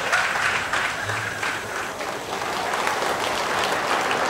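Theatre audience applauding: a steady, dense patter of many hands clapping.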